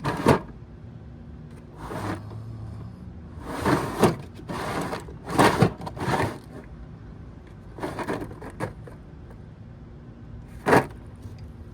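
Metal hand tools and sockets clinking and rattling in short, irregular bursts, as when rummaging through a toolbox.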